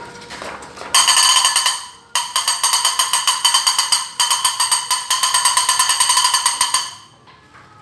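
Toy bird making a rapid, pulsing chirp-trill, loud and buzzy, in three stretches from about a second in until near the end, with short breaks in between.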